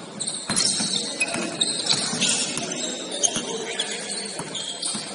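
Basketball gym sounds: short high squeaks and ticks, typical of sneakers on a hardwood court, over a background of voices.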